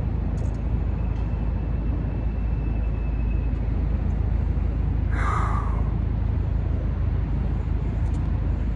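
Steady low outdoor rumble, with one short, sharper sound about five seconds in.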